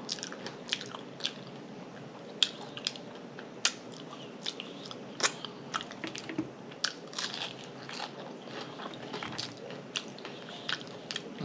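A person chewing food close to the microphone, with frequent wet lip smacks and mouth clicks at an irregular pace of a few a second.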